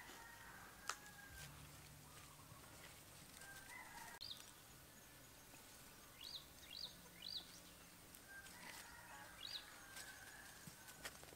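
Faint outdoor ambience with a few short, high chirps from small birds, three in a quick run about six to seven seconds in, over fainter distant calls. One sharp click about a second in.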